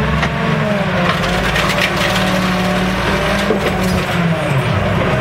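Automated side-loader garbage truck running at raised revs to drive its hydraulics while the arm lowers an emptied recycling cart back to the curb. A hydraulic whine wavers in pitch over the steady engine, with a few light clunks.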